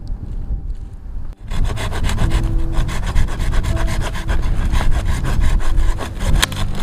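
Hand saw cutting through wood in quick, rhythmic back-and-forth strokes, starting about a second and a half in.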